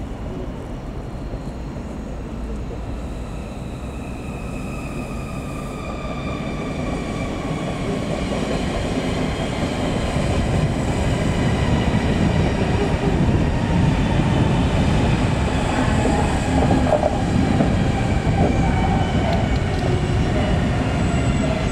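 A long SBB passenger train pushed by a Re 460 electric locomotive rolls into the station past the platform. The rumble of wheels on rail grows louder as the coaches pass, with a whine that falls slowly in pitch as the train slows. A faint high wheel squeal comes near the end.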